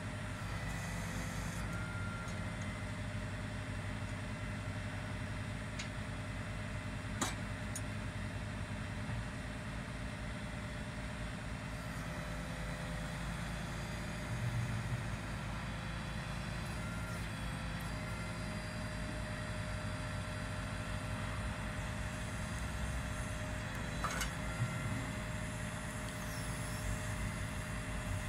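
Boom truck's engine running steadily with a low hum as the crane is worked, with a sharp click about seven seconds in and a couple more near the end.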